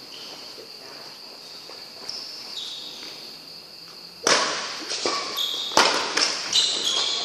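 Badminton rally on an indoor court. After a quiet stretch with a faint steady high-pitched tone, a racket hits the shuttlecock about four seconds in. Sharp racket strikes and short high shoe squeaks on the court floor follow, echoing in the hall.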